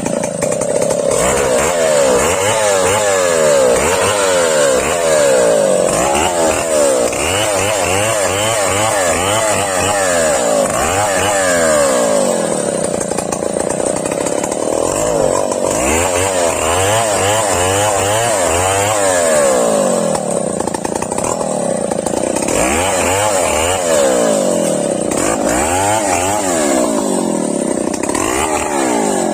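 Stihl 070 two-stroke chainsaw running loudly, its engine pitch rising and falling again and again as the throttle is worked.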